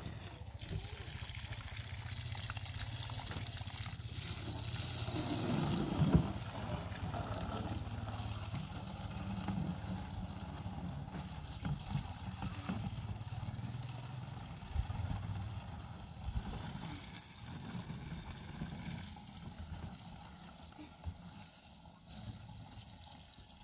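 Water running from a pipe into a plastic jerrycan, trickling and gurgling as the can fills. A single sharp knock about six seconds in.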